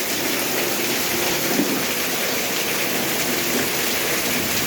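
Heavy rain pouring down, a dense, even hiss.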